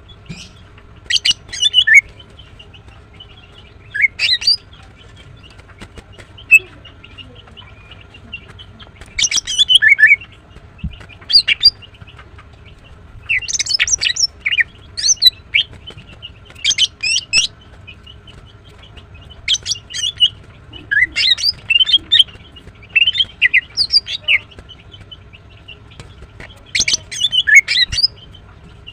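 Female greater green leafbird (Chloropsis sonnerati) chirping in short bursts of quick, high notes, a burst every second or two.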